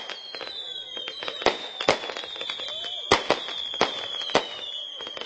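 Fireworks display: a string of sharp bangs and cracks, irregularly spaced with several close together, over high whistles that slide slightly downward in pitch.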